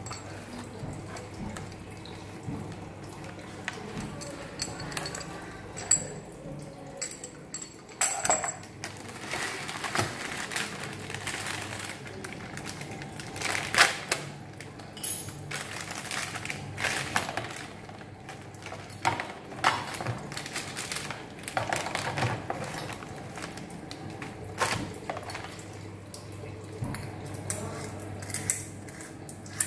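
A new wall-mounted kitchen mixer tap being unpacked and handled: plastic wrapping rustles, the cardboard box is shifted, and the metal fittings clink and knock now and then. A steady low hum runs underneath.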